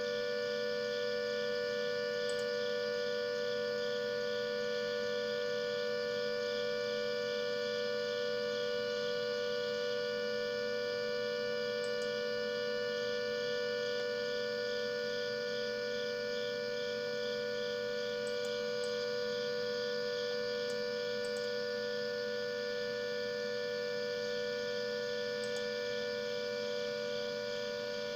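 Klaxon CS8 electronic siren sounding a steady, unbroken tone: the all-clear signal.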